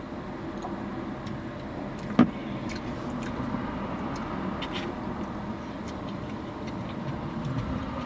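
A motor vehicle running, with a steady low rumble of engine and road noise, and one sharp knock about two seconds in.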